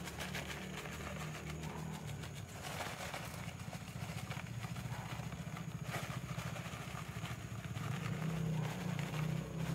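Steady low motor hum with a fast even pulse, like a small engine running, under faint dry rustling of cornbread stuffing crumbs pouring from a cardboard box.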